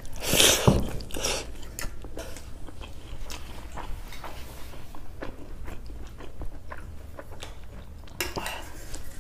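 Eating by hand from a stainless steel plate: close-up chewing and mouth sounds, loudest about half a second in as a handful goes into the mouth, with scattered small clicks and scrapes of fingers working rice and curry against the metal plate.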